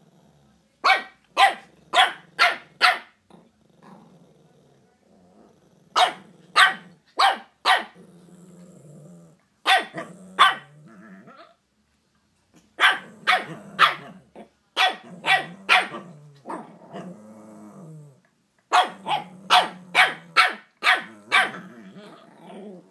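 Shih Tzus barking in quick runs of two to seven sharp barks, about two a second, with low growling between the runs.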